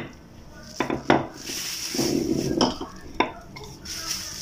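Rolling pin working biscuit dough on a plastic bag sheet: the plastic rustles and crinkles, with several sharp knocks of the pin, the loudest about a second in.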